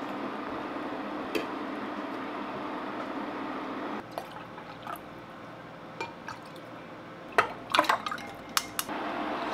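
A steady hum from an induction cooktop running under a simmering hot pot, which gives way about halfway through to a drink being poured from a jug into a glass. The pour trickles and splashes, with a quick run of sharp clinks against the glass near the end.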